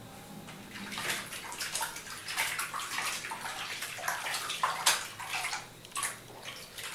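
Soapy water splashing and sloshing in a plastic basin as a kitten is scrubbed by hand, in irregular bursts that start about a second in.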